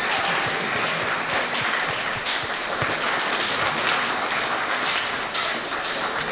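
Audience applauding, the steady clatter of many hands clapping at once.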